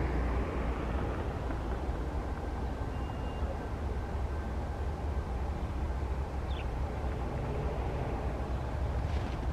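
Distant outdoor warning sirens sounding faintly as they wind down and shut off, thin tones over a steady low rumble.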